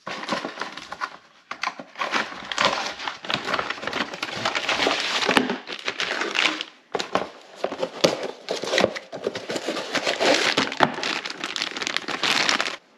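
Plastic packaging bags crinkling and rustling, with a cardboard parts box being opened, as two new sway bar end links are unpacked by hand. The crinkling is continuous and stops abruptly near the end.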